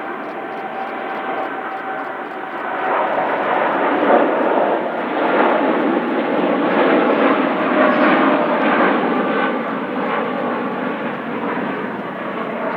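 Boeing 787-8 Dreamliner's jet engines at take-off power: a steady, loud jet noise that grows louder about three seconds in and eases off near the end as the airliner goes by.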